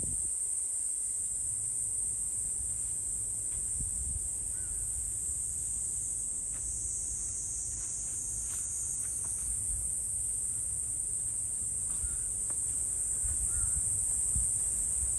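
Cicadas shrilling in one steady, unbroken high-pitched drone, with a low rumble underneath and a few faint short chirps.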